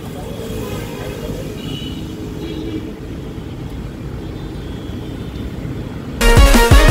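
Steady low rumble of roadside traffic outdoors. Loud electronic background music with a heavy beat cuts in near the end.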